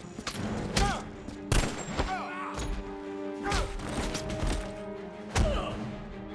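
Gunfire in a film action scene: several loud, sharp shots a second or two apart, some followed by a brief whining ring, over orchestral score.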